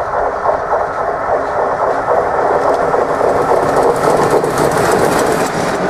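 Steam locomotive hauling a train of coaches passing close under steam, its exhaust and the clatter of wheels and coaches growing slightly louder as it comes alongside.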